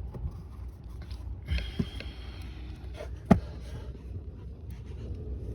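Handling noise: a few scattered clicks and knocks, the sharpest a little past three seconds in, over a low steady rumble.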